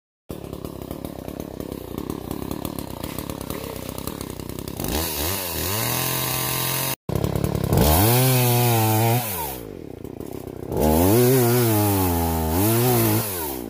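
Two-stroke chainsaw idling with a fast low ticking, then revved hard three times, its pitch climbing and wavering under load as it cuts through wood before dropping back between cuts.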